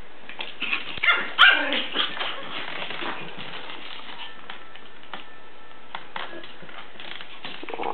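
Two Pomeranians barking and yipping in play while they wrestle, with the loudest barks about a second in, then quieter scuffling and small clicks.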